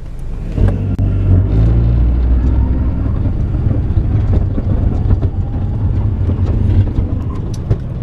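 2005 Honda Element 4x4 pulling away from a stop, heard low by the floor: a loud low drivetrain rumble that comes up about half a second in, with cracking, scraping noises from underneath, as if something were broken. The mechanic suspects the transmission, the 4x4 unit or the rear driveshaft, although the gearbox shifts with no slipping.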